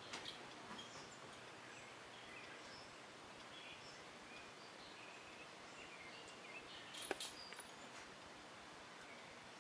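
Faint outdoor ambience with scattered, short, high bird chirps, and a single sharp click about seven seconds in.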